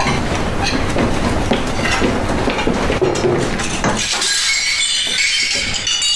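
Dishes and cutlery clattering, then about four seconds in a crash of breaking dishes, with bright tinkling and scattering shards.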